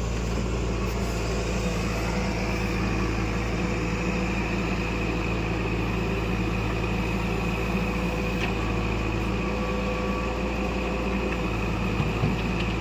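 Heavy diesel engine running steadily at a constant speed, with a couple of faint clicks.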